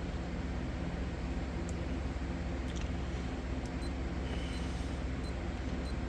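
Steady low electrical hum with a hiss, broken by a handful of very short, faint high-pitched blips in the second half.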